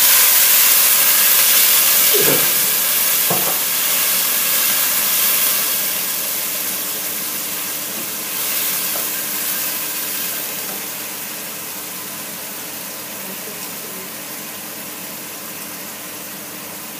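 Water hitting hot oil and fried onions in a pot: loud sizzling and hissing that slowly dies down as the water boils off. A wooden spoon stirs the onions, with two short knocks about two and three seconds in.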